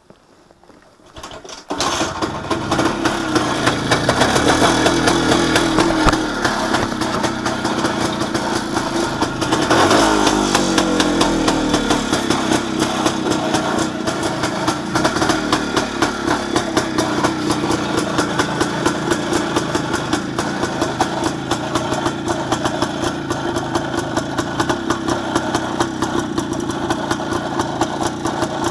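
WSK 125 Lelek's two-stroke single-cylinder motorcycle engine starting: it catches about two seconds in, then runs with a rapid firing rhythm, is revved briefly about ten seconds in, and settles to a steady idle.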